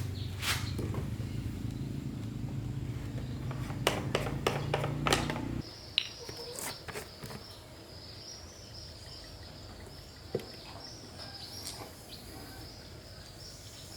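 Small petrol lawn-mower engine running steadily, with a few sharp clicks, then cutting off abruptly about five and a half seconds in. After that a steady high-pitched buzz with occasional clicks.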